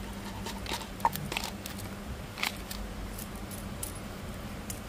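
Small gravel top-dressing tipped from a plastic scoop into a plastic pot around a succulent, the grains clicking in scattered sharp ticks, one louder about a second in, over a faint steady low hum.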